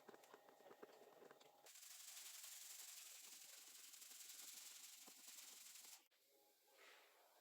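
Near silence: a faint steady hiss, with a few light clicks in the first second or so, that cuts off abruptly about six seconds in.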